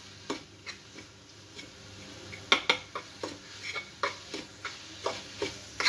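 A steel ladle clinks and scrapes against an aluminium pan as sautéed oyster mushroom strips are stirred. The clinks are sharp and irregular, about two a second, and a few ring briefly.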